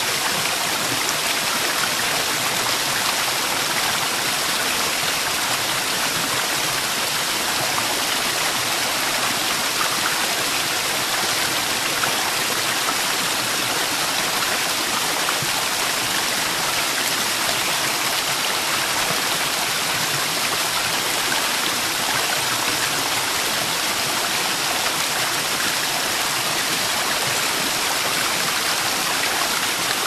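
Waterfall pouring into a pool: a steady, unbroken rush of falling water, more hiss than rumble.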